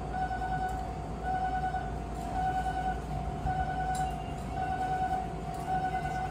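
Japanese railway level-crossing alarm ringing its electronic bell over and over in a steady rhythm, the warning that a train is approaching.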